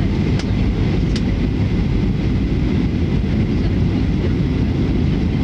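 Steady low rumble of a jet airliner's engines and airflow, heard inside the passenger cabin during the descent to land, with a couple of faint clicks in the first second or so.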